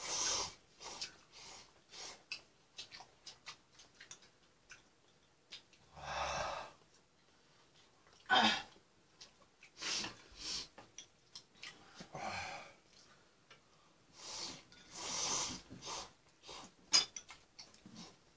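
A person slurping and eating ramen noodles, with several separate noisy slurps and breaths, each about half a second to a second long. Short light clicks of chopsticks and spoon against the pot and bowls fall between them.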